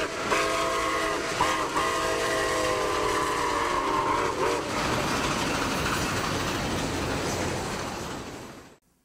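A train horn sounding a chord in three blasts, the last held about three seconds, over the steady noise of a running train. The train noise goes on after the horn stops and fades out near the end.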